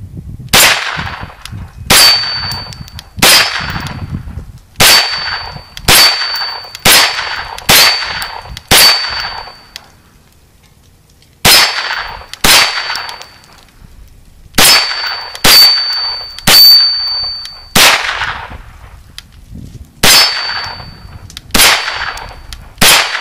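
Kel-Tec Sub2000 Gen 2 9mm pistol-calibre carbine fired semi-automatically, about seventeen shots roughly a second apart with a short pause in the middle, from a 17-round Glock magazine. A high metallic ring lingers after many of the shots.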